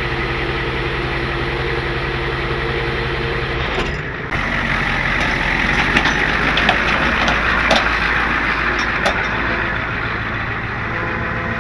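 Ford F-350 wrecker's engine idling steadily. About four seconds in, the sound changes to a louder, even rush over the engine.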